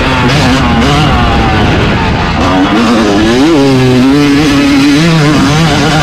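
Yamaha YZ250 single-cylinder two-stroke motocross engine, heard on board, its revs rising and falling as the throttle is worked over a rough dirt track, with a quick sharp rev peak about three and a half seconds in.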